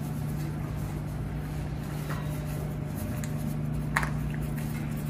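Steady low room hum with a constant low tone, and one short faint tap about four seconds in.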